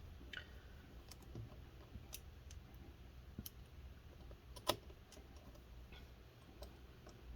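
Faint, scattered small clicks and taps of a precision screwdriver and tiny screws being fitted into a laptop's metal chassis, with one sharper click about four and a half seconds in.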